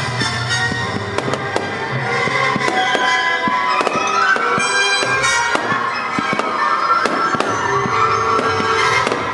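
Fireworks popping and crackling over loud music played along with the display.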